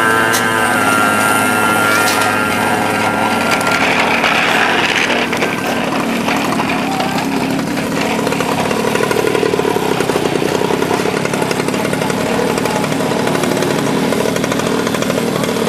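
Small engine of a child's pocket bike (minimoto) running steadily, a fast even buzz that settles in a few seconds in and holds.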